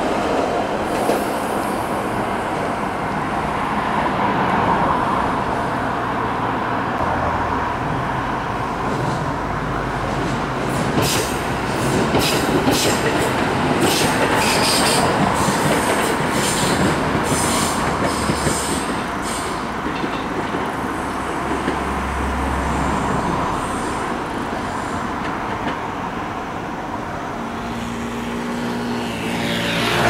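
Train running through a multi-track station yard: a steady rumble, with a quick series of wheel clacks over rail joints and points between about 11 and 19 seconds in. A falling whine sweeps past near the end.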